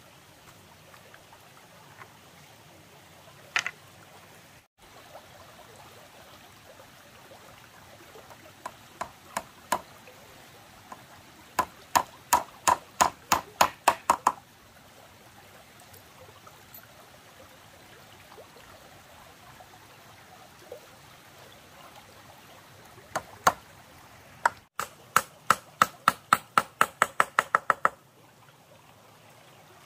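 A stone used as a hammer knocking on bamboo slats of a gate panel: a few single blows, then two quick runs of sharp knocks at about five a second, one about twelve seconds in and one near the end.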